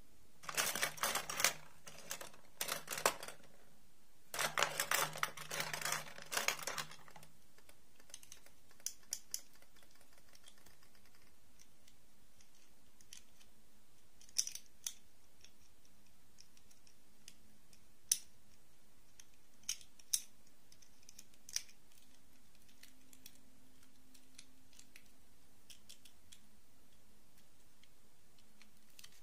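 Small plastic dolls and plastic clip-on dresses clattering and rattling against a wooden box as hands rummage through it, busiest for the first seven seconds. After that come only a few scattered single clicks as a dress is fitted onto a doll and the doll is set down.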